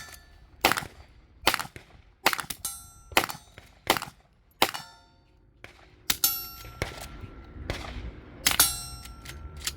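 Gunfire: about a dozen single shots at an irregular pace of roughly one a second, several of them followed by the ring of bullets striking steel targets.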